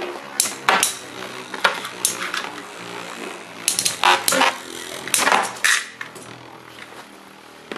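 Two Beyblade spinning tops, Diablo Nemesis and Lightning L-Drago with metal fusion wheels, whirring in a plastic stadium and clashing repeatedly with sharp metallic clinks. The clashes are thickest around four and five seconds in. Near the end one top spins on alone, more quietly, the other having been knocked out.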